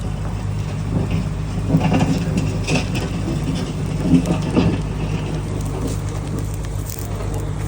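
Excavator's diesel engine running steadily, with irregular crunching and scraping of dirt and rock as the bucket digs, loudest about two seconds in and again about four seconds in.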